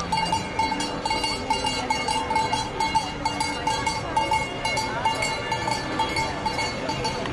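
Cowbells rung by hand, clanging over and over at about three to four strikes a second.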